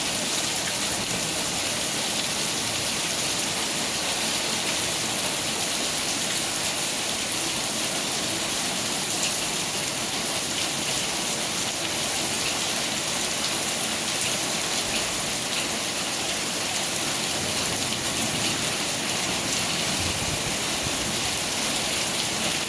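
Rain falling steadily: an even hiss with faint scattered drop ticks.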